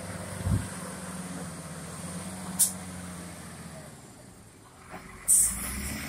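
Shantui wheel loader's diesel engine running with a steady drone that fades after about four seconds, with a low thud about half a second in. Short sharp hisses cut in, a brief one in the middle and a louder one near the end.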